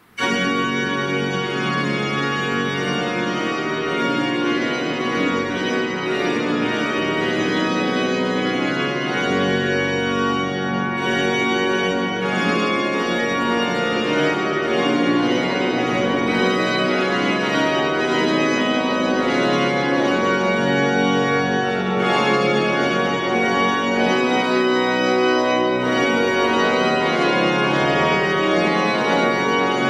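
Church organ playing full, sustained chords, starting abruptly at the very beginning.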